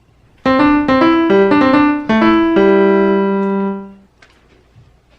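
A short piano phrase: about ten quick notes starting about half a second in, ending on a held chord that dies away after about four seconds.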